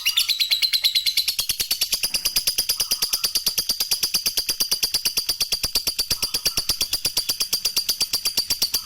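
Lovebird in a long ngekek: a rapid, even chattering trill of about nine shrill notes a second, held without a break.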